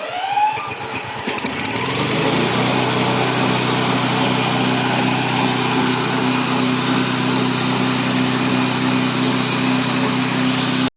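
Remote-control lawn mower's engine, just key-started with the choke on and the throttle opened, picking up speed over the first two seconds and then running steadily.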